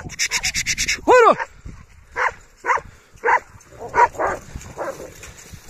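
Kangal shepherd dogs mauling a wolf carcass: one high yelp about a second in, then a string of short barks and snarls every half second or so. A fast rattling noise fills the first second.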